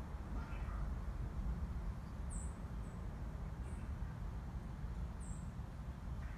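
Short, very high bird chirps, four of them spread across a few seconds, over a steady low rumble.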